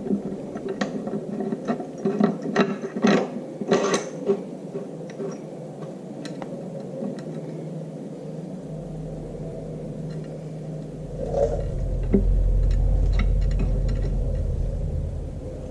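Metal clicks and knocks as a tractor PTO's rear plate and bolts are handled and fitted. A deep, steady rumble builds up about halfway through, is loudest a few seconds later and fades near the end.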